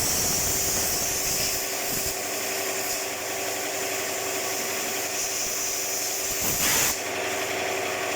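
Compressed air hissing steadily over a steady machine hum, with a short louder burst of hiss near the end.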